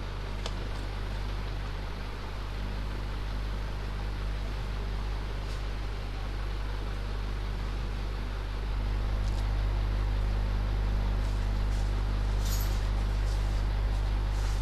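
Steady low rumble over even background noise, with no barking or voices; the rumble gets louder about nine seconds in, and there are a few faint clicks near the end.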